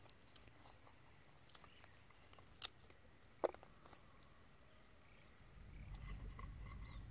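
Near silence outdoors, broken by two or three light clicks in the middle; a low rumble comes up about two-thirds of the way through.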